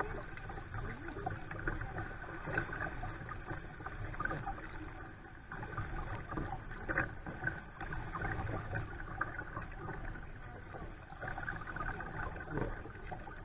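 Water lapping and splashing against a kayak's hull as it is paddled along, with the dip and wash of the paddle.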